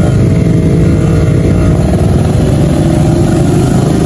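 Yamaha motorcycle with an aftermarket HTX exhaust, its engine note loud and steady and climbing gradually in pitch as the bike picks up speed out of slow traffic.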